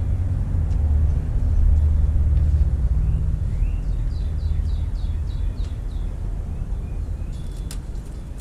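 A loud low rumble that fades away over the last few seconds, like a vehicle passing. Around the middle, a bird calls a quick run of about seven short down-slurred chirps.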